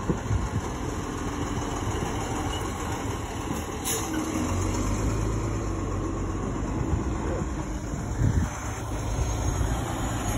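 Fire engine's diesel engine running as the truck pulls slowly past at close range; its low drone grows fuller and louder from about four seconds in.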